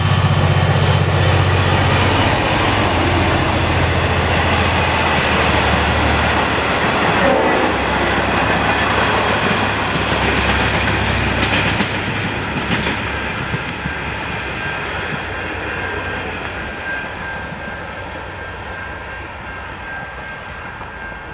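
V/Line N class diesel-electric locomotive passing close with its engine running, followed by its carriages clattering over the rail joints. The low engine sound fades about halfway through and the train noise dies away as it recedes. In the second half a thin high ringing from the level crossing's bell runs beneath the fading train.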